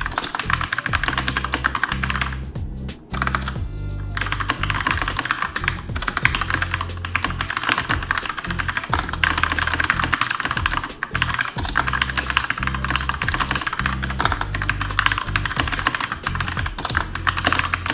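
Fast, continuous typing on a Keychron K2 mechanical keyboard: a dense stream of key clicks that breaks off briefly about three seconds in, then carries on. Background music plays underneath.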